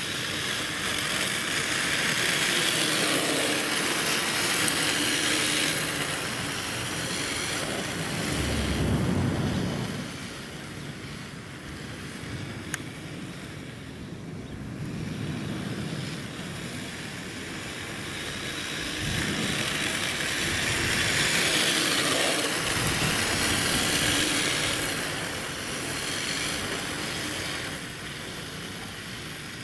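An RC drift car sliding across asphalt: the hiss of its hard tyres scrubbing sideways along with its running gear. It swells twice as the car swings close and then fades as it moves off, with a low rumble about eight seconds in.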